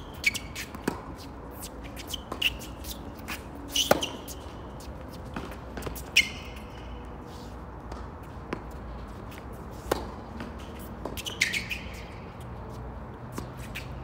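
Tennis balls struck by rackets and bouncing on an outdoor hard court during a singles rally: sharp pops every few seconds, with tennis shoes squeaking briefly on the court surface between shots.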